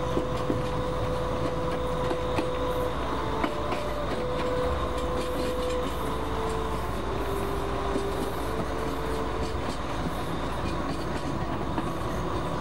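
Passenger train running on the rails: a steady rumble with scattered clicks of the wheels. A slow melody of long held notes plays faintly over it.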